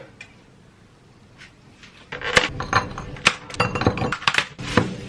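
Tableware clinking and knocking: a quick, irregular run of sharp, ringing clinks of dishes and utensils that starts about two seconds in, after a faint start.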